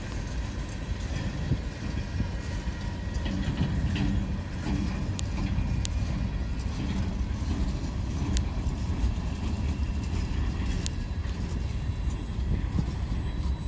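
Freight cars of a slow-moving freight train rolling past: a steady low rumble of steel wheels on rail, with a few sharp clicks scattered through it. The train is held to slow orders while track workers clear the diamonds of snow and ice.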